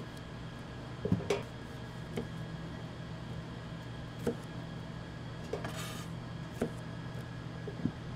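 Kitchen utensils and dishes clinking and knocking, about eight separate taps with a short scrape around six seconds in, over a steady low hum.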